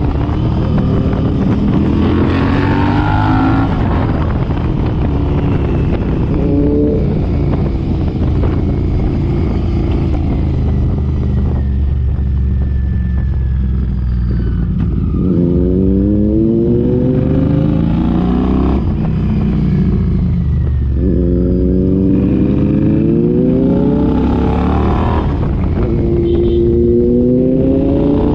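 Royal Enfield Interceptor 650's parallel-twin engine through an AEW 2-into-1 aftermarket exhaust, pulling hard through the gears under a deep rumble. The pitch climbs, drops at each upshift and climbs again, several times over.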